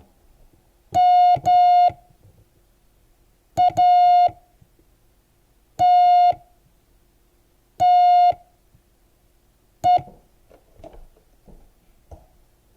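Morse code practice tone, a steady beep near 700 Hz, keyed in long and short elements with about two seconds between letters. It spells M, A, T, T, E (dah-dah, dit-dah, dah, dah, dit), the word "matte" sent with wide letter spacing for a learner to copy.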